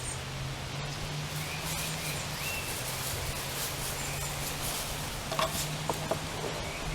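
Outdoor background with a steady low hum, a faint high chirp about two and a half seconds in, and a few light clicks near the end.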